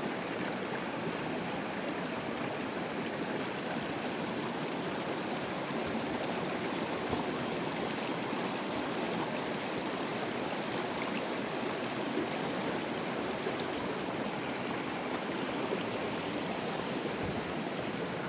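Shallow rocky stream flowing steadily, a continuous rush of water over stones.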